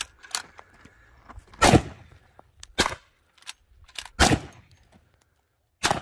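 Rifle shots, three sharp reports roughly two seconds apart, with lighter clicks between them.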